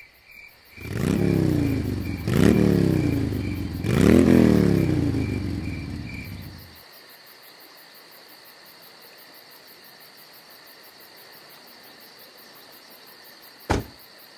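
Engine sound effect revving up three times, its pitch climbing with each rev, then dying away about seven seconds in. A single short knock near the end.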